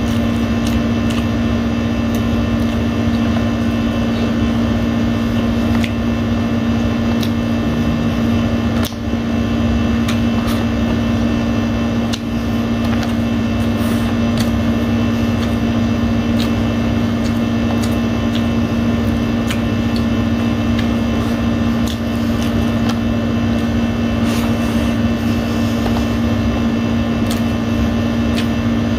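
Air conditioner running with a loud, steady hum, with faint clicks of eating by hand over it.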